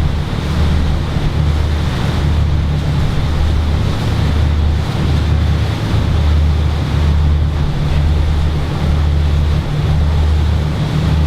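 Tour boat's engine running steadily as the boat cruises below full speed, a low drone that swells and dips, with wind buffeting the microphone and water rushing past the hull.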